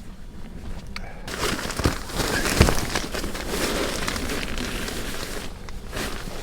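Crinkling and rustling of nylon camping gear being handled, starting suddenly a little over a second in, with a few sharp clicks and crackles.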